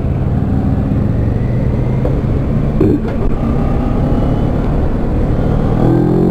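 CFMoto 400NK motorcycle's parallel-twin engine pulling hard from low speed under wind rush, with a brief break about three seconds in. The revs rise again near the end.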